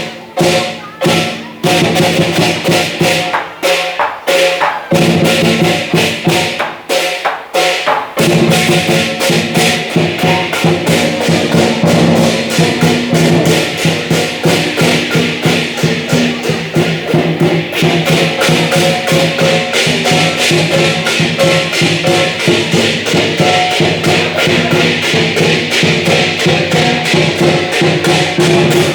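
Lion dance percussion of drum, crashing cymbals and gong: separate strikes with short pauses for the first eight seconds or so, then a fast, unbroken beat with the cymbals ringing on.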